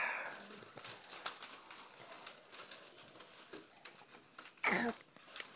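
A small child's short vocal squeak, sliding down in pitch, about four and a half seconds in, after a few seconds of light taps and handling clicks.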